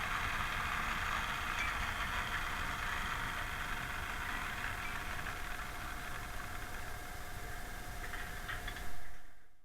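Model train running along the track: a steady whirring rattle of motor and wheels with a thin constant hum, easing off slowly and fading out near the end.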